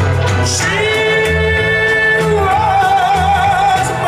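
Music with a singing voice holding long notes, the second one wavering, over a repeating bass beat.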